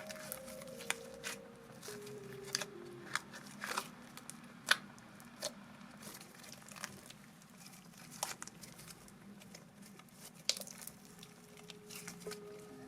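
Slime being kneaded and stretched by hand: irregular sticky crackles and pops over a soft squish, with a few sharper snaps.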